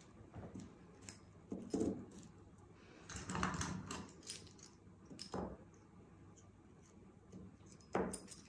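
Paper sewing pattern being pinned to silk fabric: scattered rustles and light metallic clicks, with a longer rustle about three seconds in.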